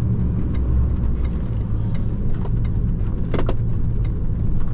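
HGV lorry engine running with road noise, heard from inside the cab: a steady low drone, with a few faint ticks and a sharper double click about three and a half seconds in.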